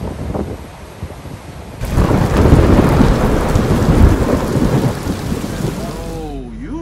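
Wind and surf, then heavy rain with rolling thunder coming in suddenly about two seconds in; the rumbles peak twice and the storm sound fades out near the end.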